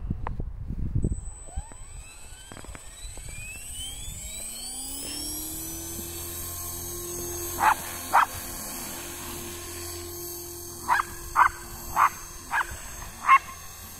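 Electric Tarot 450 flybarless RC helicopter spooling up in a rising whine that then settles into a steady whine. Over it a dog barks twice about eight seconds in, then five more times near the end; the barks are the loudest sounds.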